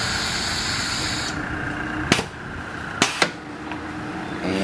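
Orbitform B-250 radial riveting machine running with a high, steady whine that stops about a second in. Then three sharp metallic clicks, the last two close together.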